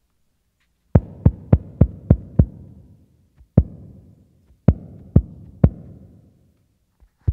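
A deep drum struck in a slow pattern: six beats about three a second, a pause, a single beat, then three more, each ringing out briefly.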